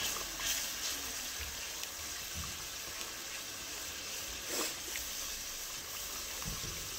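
Wet onion-tomato masala with ground spices sizzling and bubbling in oil in an aluminium pot on a low gas flame while being stirred with a wooden spoon; a steady hiss that swells briefly twice.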